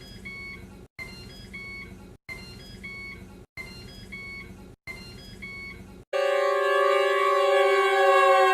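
Synthesized emergency-alert tones. A short pattern of electronic beeps repeats about every 1.25 seconds with brief silences between. About six seconds in, a much louder sustained multi-tone alarm chord starts, sliding slowly lower in pitch.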